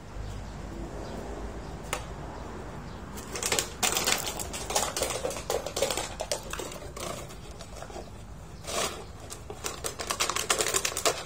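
Empty plastic water bottle crackling and crunching in a dog's jaws as it chews and mouths it, in bouts of rapid clicks from about three seconds in and again near the end.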